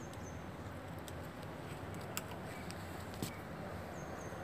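Steady faint outdoor background noise with a few sharp snaps and clicks, about a second apart, as the flowering branches of a drumstick (moringa) tree are pulled by hand to pick the flowers. A brief high bird chirp comes near the start and another near the end.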